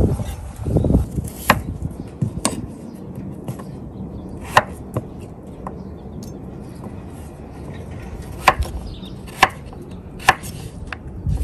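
Knife chopping raw cocoyam into chunks, with about seven sharp, irregular knocks of the blade through the tuber onto the board, spaced one to a few seconds apart.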